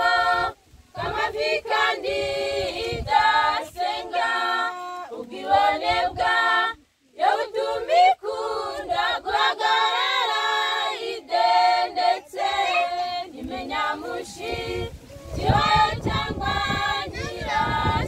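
A choir of young women singing a Christian song a cappella in Kinyarwanda, several voices together in phrases with short breaks for breath.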